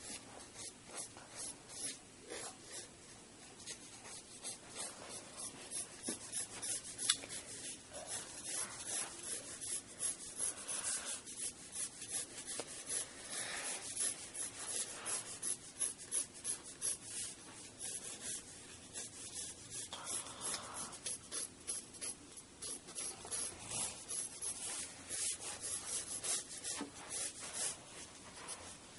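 Pencil scratching on paper in quick, repeated sketching strokes, several short strokes a second.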